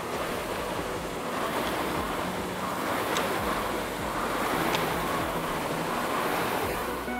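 Concept2 air rowing machines' fan flywheels whooshing in a surge with each hard stroke, about every second and a half, at full effort in a 2000 m test row. A couple of light clicks come in the middle.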